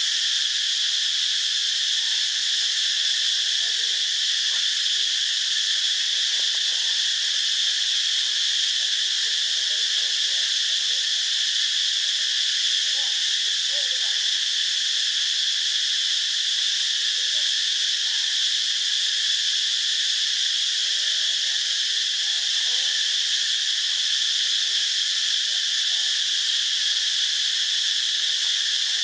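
Steady, unbroken forest insect chorus, high-pitched and dense, with faint scattered short calls beneath it.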